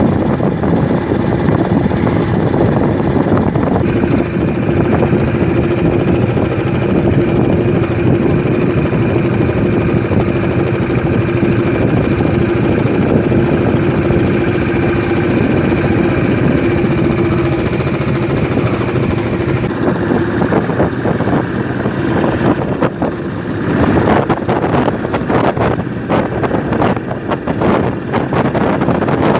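Royal Enfield Classic 500's air-cooled single-cylinder engine running as the motorcycle is ridden, holding a steady note for a long stretch. In the last several seconds, wind buffets the microphone.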